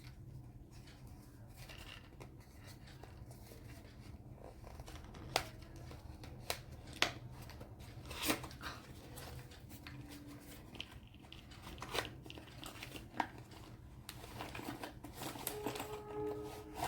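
Small accessory packaging being worked open by hand: scattered sharp clicks and snaps with light rustling and crinkling as the box or wrapping is pried and torn at.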